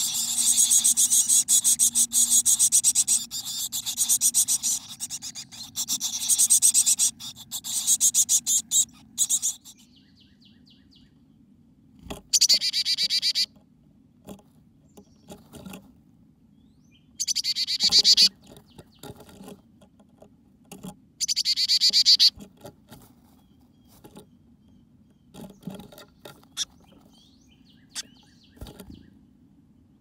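Chickadees inside a nest box giving rapid, high-pitched pulsing calls: a long run of calling at first, then three short bouts. Scratchy rustles and light knocks come from the birds moving on the nest between the bouts.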